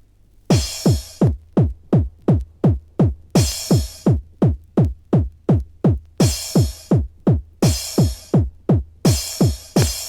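Electronic dance track opening with a drum-machine kick drum, each kick dropping in pitch, about three beats a second, coming in about half a second in. Short washes of hissing noise sweep over the beat every few seconds.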